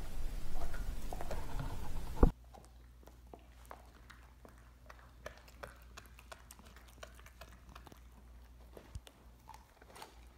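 A dog gnawing a raw lamb leg: chewing noises for the first two seconds, ending in a sharp knock, then faint, scattered clicks of teeth working on the meat and bone.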